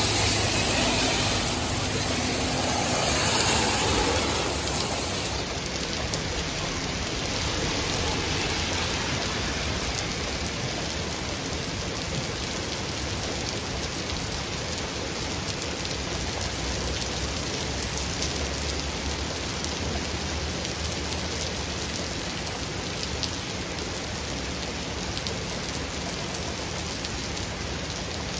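Heavy thunderstorm rain pouring onto a wet street and pavement, a dense steady hiss of drops, louder for the first few seconds.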